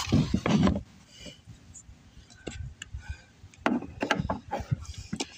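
Handling noise from rummaging through a boat's bait and storage compartment: a cluster of knocks and rubbing in the first second, then scattered clicks and a few sharper knocks about four seconds in.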